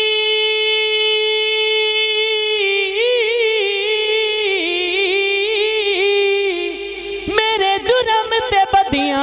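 A voice singing a Punjabi naat (devotional praise of the Prophet), holding one long steady note and then breaking into quick ornamented melismatic turns. Shorter, choppier sung phrases begin about seven seconds in.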